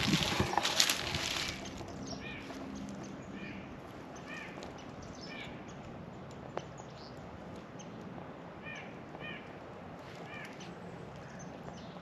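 Footsteps crunching through dry leaf litter for about the first second and a half, then a bird giving short repeated calls, one or two at a time, every second or so.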